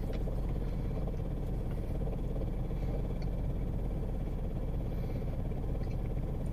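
Steady low hum of an idling car, heard from inside its cabin.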